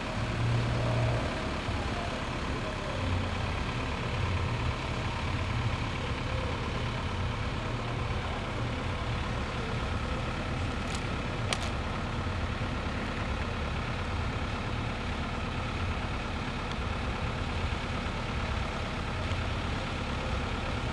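MXS aerobatic monoplane's piston engine and propeller, a steady distant drone from the aircraft flying overhead. Two short clicks about halfway through.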